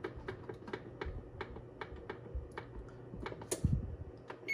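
Fingertip tapping the plus pad of an electric range's oven touch keypad, a train of small clicks about five a second that slows later, as the cooking time is counted up to 40 minutes. A louder knock comes near the end, and a short high beep sounds right at the end as the cooking-time pad is pressed.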